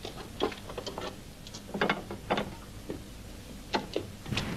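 Irregular metallic clicks and clanks of railway points being worked by hand at the lever and switch blades. A train's rumble starts near the end.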